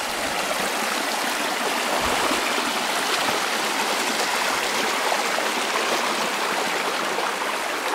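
Shallow creek running over rock and small riffles: a steady, even splashing rush of water.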